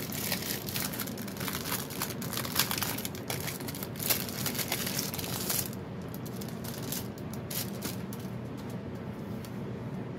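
Thin clear plastic packaging crinkling as it is pulled open and handled. The crinkling is dense for about the first six seconds, then only a few scattered crinkles.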